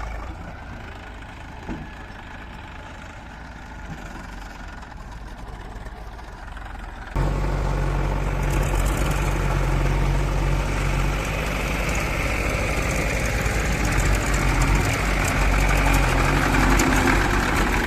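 Heavy diesel machinery engine idling low for the first several seconds, then about seven seconds in the sound jumps suddenly to a louder, steadily running engine.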